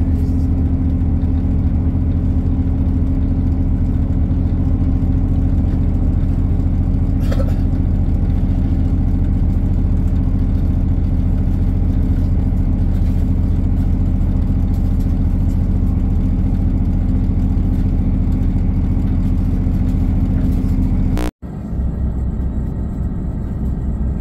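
Diesel multiple unit running under power, its underfloor diesel engine giving a steady low drone inside the carriage. About 21 seconds in the sound cuts off abruptly and a quieter rumble follows.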